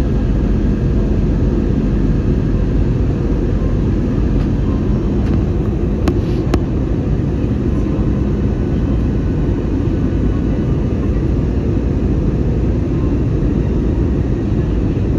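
Steady, low-pitched cabin noise of an airliner in flight: engine drone and rushing air, with two faint clicks about six seconds in.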